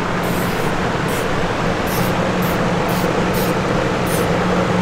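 Short hisses of an aerosol spray-paint can, about seven quick bursts as letters are sprayed on, over the steady hum and drone of a large exhaust fan.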